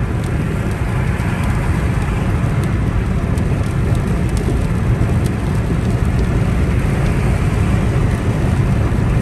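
Steady cabin noise of a 2019 Toyota Corolla GLi 1.3 driving at speed on a wet motorway: tyre and road noise with a low rumble, and a few faint ticks of rain on the windscreen.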